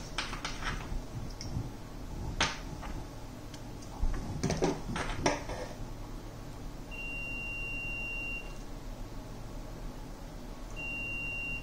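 Clamp multimeter's continuity beeper sounding a steady high beep twice, each about a second and a half long, as the probes touch across a removed rectifier diode: the diode is shorted. A few sharp clicks and knocks come in the first half.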